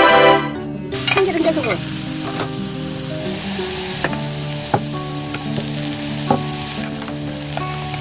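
Dried pollack and vegetables sizzling in sesame oil in a metal pot on a portable gas stove, starting about a second in, while wooden chopsticks stir them. The chopsticks give a few sharp knocks against the pot.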